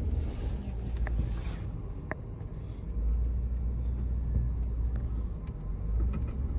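Off-road 4x4's engine running at low speed with a steady low rumble, and a few faint clicks or knocks, the clearest about one and two seconds in.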